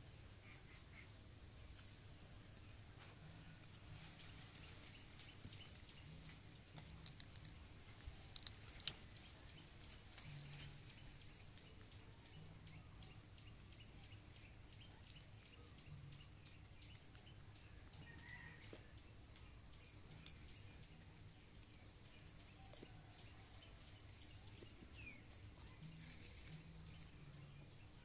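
Near silence: a faint outdoor background with a cluster of sharp clicks about seven to nine seconds in and a few faint short chirps later on.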